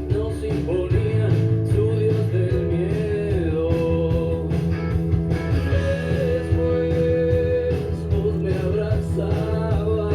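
Rock music with guitar and a singing voice, playing steadily; no drill sound stands out.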